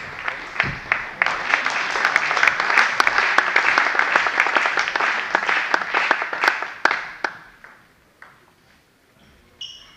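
Spectators applauding a won point in a table tennis match: dense clapping builds about a second in and dies away around seven seconds in. A couple of dull thuds come in the first second.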